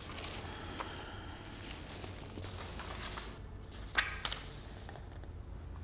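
Papers being handled and rustled at a desk over a low steady room hum, with two sharp clicks about four seconds in.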